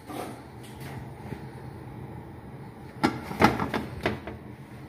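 Stainless steel pot lid being set down onto a cooking pot: a few metal knocks and scrapes with a short ring, about three seconds in, after a faint steady background hum.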